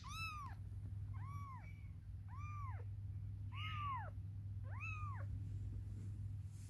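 A kitten mewing five times, about once a second, each mew short and high-pitched, rising then falling in pitch. A steady low hum runs underneath.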